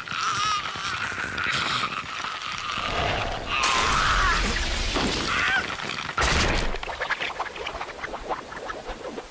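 A man screaming in agony, with a wavering held cry for the first couple of seconds, then loud crunching, breaking sound effects about three and a half seconds in and again with a heavy low hit about six seconds in.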